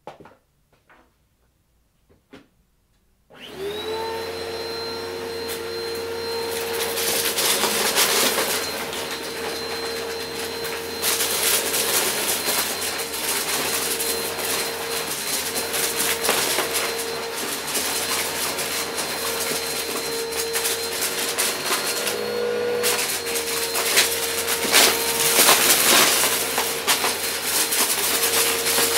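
A Shark upright vacuum cleaner switches on about three seconds in, its motor spinning up to a steady whine. It then runs over carpet while its brushroll sucks up small cardboard pieces with a dense, irregular crunching and crackling.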